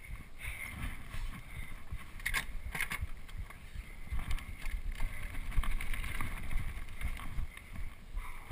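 Mountain bike riding fast over a dirt single-track trail: wind buffeting the microphone over the rumble and rattle of the bike on the rough ground, with two sharp clacks about two and a half seconds in.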